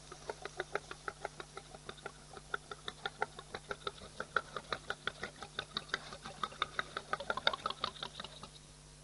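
A rapid run of short, high chirping animal calls, several a second, busiest near the end before stopping, over a faint steady electrical hum.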